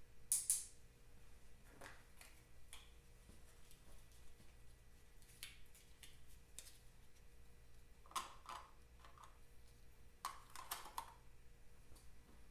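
Scattered small clicks and taps over a faint low hum, the loudest a sharp pair about half a second in, with further little clusters of clicks about eight and ten seconds in.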